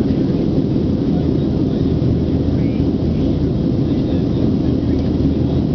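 Steady cabin noise inside a Boeing 737-700 in flight: the CFM56-7B turbofan engines and the airflow over the fuselage make a constant low noise, even and unbroken.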